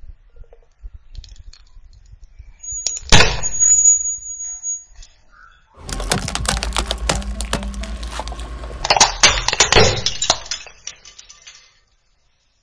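A car tyre crushing small objects: one sharp crack about three seconds in. Then a car engine runs low under a long run of cracking and crunching as the tyre rolls over hard plastic toy blocks on gravel, densest about nine seconds in.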